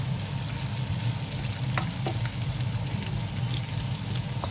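Onions and garlic frying in hot oil, a steady sizzle broken by a few sharp pops.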